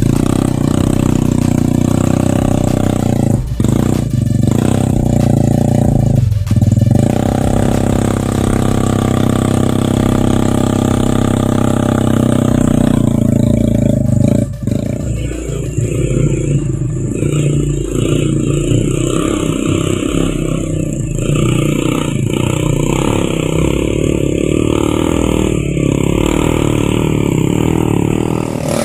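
Motorcycle engine running hard under load as it carries oil palm fruit up a steep climb. Its note dips briefly a few times, and about halfway through the steady drone gives way to a rougher, noisier sound.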